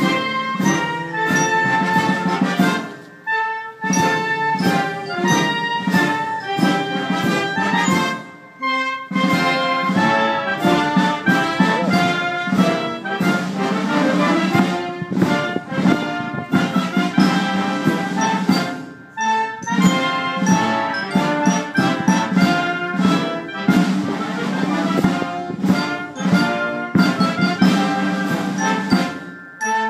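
Background music, orchestral with brass, with a few brief pauses between phrases.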